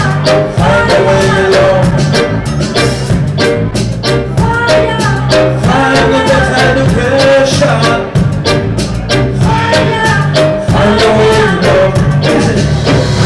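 Reggae-dub band playing, with singing over a steady bass line, drums and electric guitar.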